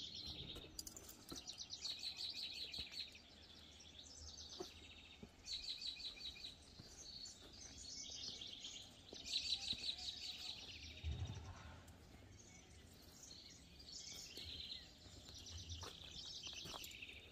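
Faint songbirds singing: short rapid trills, each about a second long, repeated every second or two.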